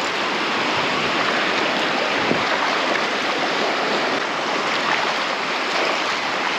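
Surf washing onto a beach: a steady, unbroken rush of water.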